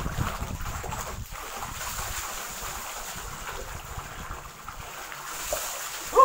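Water gushing from a pipe into a concrete water tank and splashing as a bather scoops and pours it, with wind rumbling on the microphone. A short, loud, pitched sound comes right at the end.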